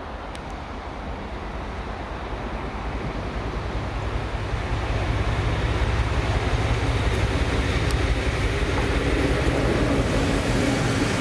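Class 56 diesel locomotive's 16-cylinder engine running as it approaches and passes hauling a rail head treatment train, growing steadily louder. A hiss from the train's water jets blasting the rails rises with it as it draws near.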